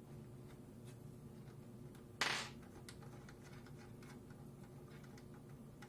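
Hands working loose the mounting screws of a CPU cooler: faint small clicks and ticks over a steady low hum, with one short, louder burst of noise about two seconds in.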